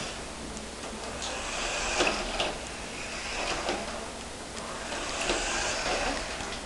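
Electric motor of a toy remote-control monster truck whirring in two short bursts as it drives, with a few sharp knocks.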